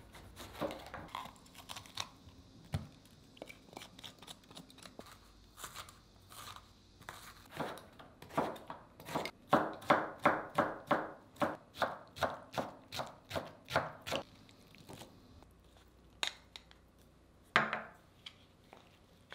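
Knife chopping food on a cutting board: a few scattered cuts at first, then a steady run of strokes about two to three a second, and two single louder knocks near the end.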